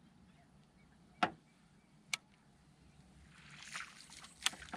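Sharp knocks on a small fishing boat, two about a second apart and a third near the end, with a brief rush of sloshing water between them.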